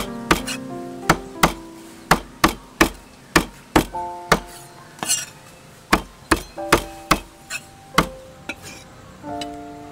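A steel cleaver chopping through cooked cow intestine and striking a wooden chopping block, in sharp chops about two a second, over background music.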